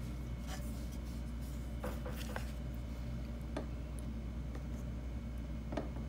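A few light taps and scrapes of food and a wooden spoon being handled in a coconut-shell bowl: one about half a second in, a short scraping cluster around two seconds, one at three and a half seconds and the sharpest near the end, over a steady low room hum.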